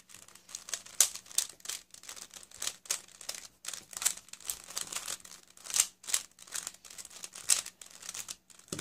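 Stickerless plastic 3x3 speed cube being scrambled by hand: rapid, irregular clicking and clacking as its layers are turned.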